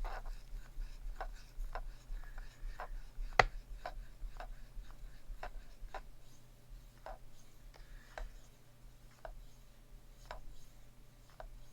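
Knife blade being stroked across a Shapton 5000 grit whetstone in freehand sharpening: short scraping strokes, about one or two a second, with a sharp click about three and a half seconds in.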